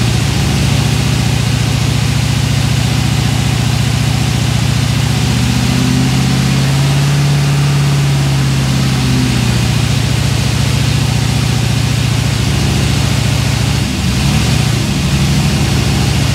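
Turbocharged 5.3 L LS V8 airboat engine running at idle on a freshly installed Megasquirt 2 fuel injection controller; its speed rises a little in the middle and settles back.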